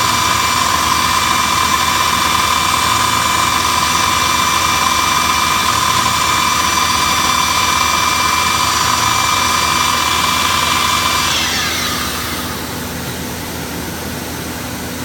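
CNC router spindle running with a steady high-pitched whine, then spinning down about eleven seconds in, its pitch falling away. A steady machine noise carries on underneath after the whine has died.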